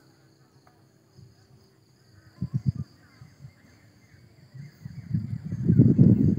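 Steady high-pitched drone of insects, with a few low thumps about halfway through. Irregular low rumbling grows loud in the last second and a half.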